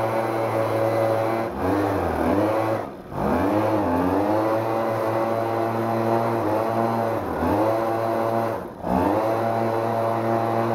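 Husqvarna 130BT backpack blower's small two-stroke engine running at speed. Twice its speed sags sharply and nearly dies, then picks back up. The carburetor is adjusted so it runs at high speed, but the low end is completely garbage and it won't idle.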